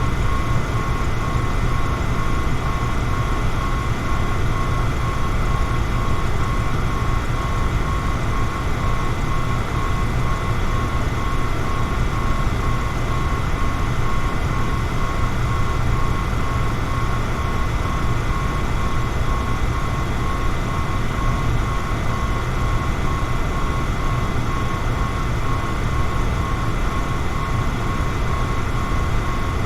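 Electric fan running steadily: a constant rush of air with a low hum and a thin, faint whine above it that never changes.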